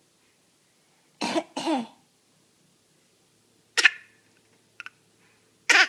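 Two short, sharp little coughs about two seconds apart, the first about four seconds in and the second near the end. They follow a brief two-part vocal sound.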